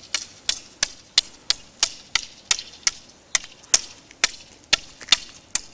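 A long thin stick tapped on asphalt like a blind man's cane, giving a steady series of sharp clicks at about three a second.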